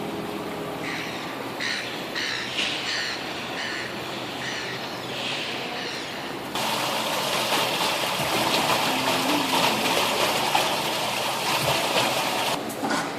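Running water: a loud, even rush of water that starts abruptly about six and a half seconds in and cuts off suddenly near the end. Before it, a few short high chirps sound over a steadier background.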